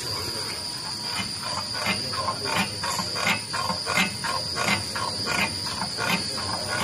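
Rear suspension creaking and squeaking in a regular rhythm, about three squeaks a second, as the suspension is worked up and down; the noise comes from worn-out rear suspension rubber bushings.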